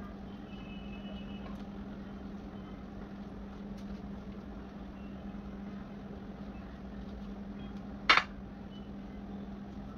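A steady low hum, with one sharp clink of a metal knife against a china plate about eight seconds in.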